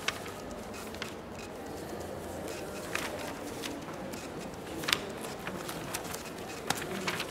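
Quiet room tone with a few scattered soft clicks and knocks, the sharpest about five seconds in.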